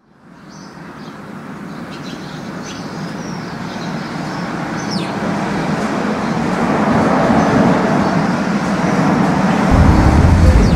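City street traffic ambience fading in and growing steadily louder, with a few faint high chirps in the first half and a deep rumble joining near the end.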